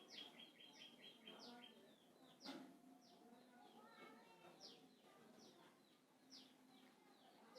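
Faint birds chirping: short downward-sweeping chirps repeating every second or so, with a quick run of about seven even notes near the start. A single sharp click about two and a half seconds in.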